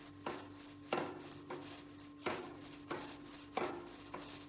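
A cloth being pulled back and forth between the sprockets of a bicycle cassette during degreasing, about seven quick scraping swipes at an even pace, each fading quickly.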